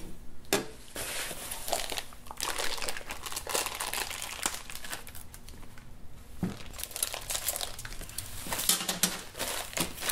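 Clear plastic bags crinkling and rustling as hands unwrap blue silicone intake couplers: an uneven stream of rustles with short, sharper crackles.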